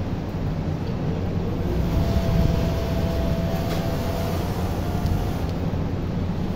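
Steady machine din of a garment workshop: industrial sewing machines running, a continuous low hum with a faint steady whine in the middle, a little louder about two seconds in.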